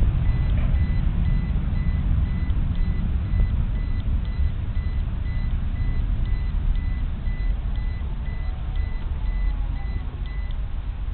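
A vehicle's reversing alarm beeping quickly and steadily, stopping near the end, over a low rumble of background traffic.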